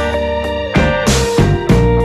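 Intro music: upbeat instrumental with held keyboard and guitar notes over a steady beat.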